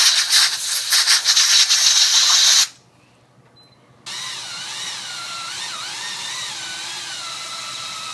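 Power drill boring into a safe's steel: a harsh, chattering grinding for nearly three seconds that stops abruptly. About a second later the drill runs again with a steadier whine whose pitch wavers as the load on the bit changes.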